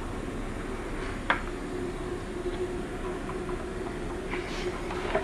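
Steady low hum of room or equipment noise, with one sharp click about a second in as the tiny vinyl disc is handled and fitted onto the turntable platter.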